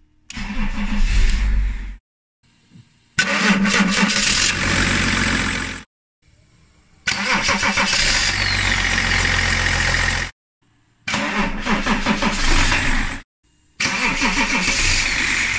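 A freshly rebuilt starter motor cranking a BMW car engine, which catches and starts, in several short takes that cut off abruptly one after another.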